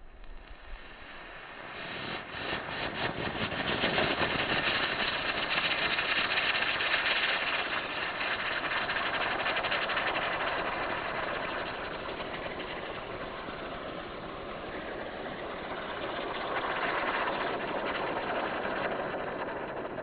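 Bailarina ground-spinner firework (cascade type) burning with a steady, loud hiss of spraying sparks. It builds up over the first couple of seconds with a burst of crackling, then swells again near the end before starting to die down.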